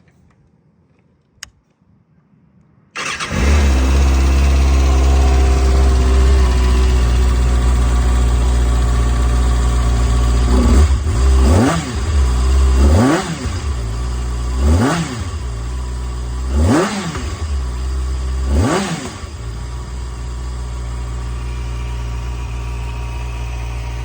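Kawasaki ZX-6R inline-four with a new aftermarket exhaust. The engine sound comes in suddenly about three seconds in and idles, then the throttle is blipped five times about two seconds apart, each rev rising and dropping back to idle, before it settles into a steady idle.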